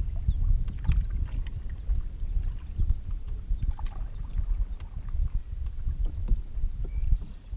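Canoe under way on a river: a gusty low rumble of wind on the microphone, with faint small splashes and drips of water around the hull.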